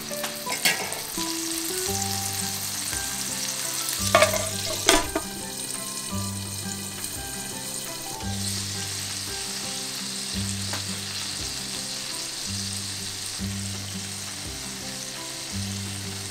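Hamburger patties sizzling in oil in a frying pan, a steady frying hiss, with a few sharp clatters about four to five seconds in.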